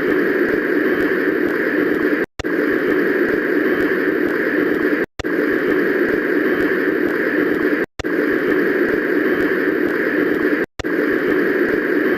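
Cartoon waterfall sound effect: a steady rushing of falling water, looped, with a brief complete dropout about every three seconds where the loop restarts.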